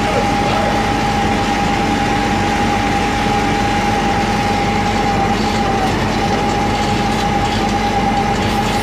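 Fuel tanker's pump and flow meter unit running steadily: a constant high whine over a low, even engine hum.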